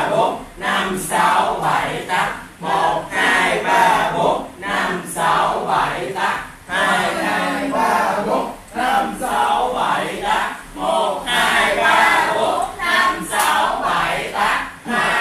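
A group of many voices shouting together in unison, in short rhythmic bursts about twice a second, like a class chanting along to a count.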